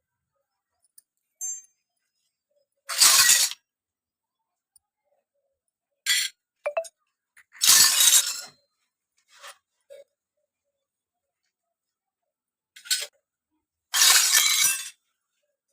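Handling of miniature toy kitchen pieces and their packaging: short bursts of clinking and crinkling, the three loudest lasting under a second each, about three, eight and fourteen seconds in, with smaller clicks between.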